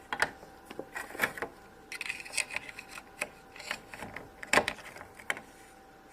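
Small plastic MagiClip doll and its soft plastic clip-on dress being handled: irregular light clicks and rubbing as the dress is pulled off and pressed onto the doll, the loudest click about four and a half seconds in.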